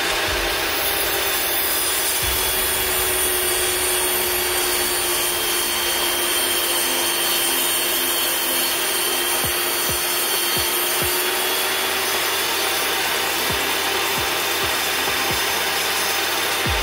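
Portable table saw running steadily with a constant whine as a wooden crosscut sled carrying a board is pushed through the blade; the whine sags slightly in pitch for a few seconds midway while the blade cuts.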